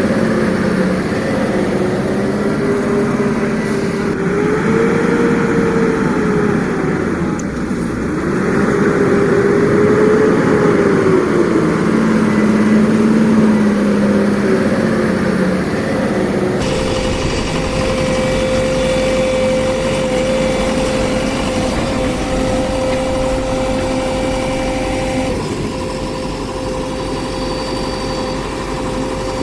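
Engine-like running sound of a toy construction vehicle, its pitch sweeping slowly up and down several times. About 17 seconds in it changes abruptly to a steady hum with a constant high tone.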